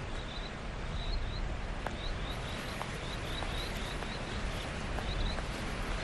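Outdoor field ambience: a steady low rumble of background noise with a small bird chirping faintly, short high notes in little groups of two or three about once a second, and a few faint ticks.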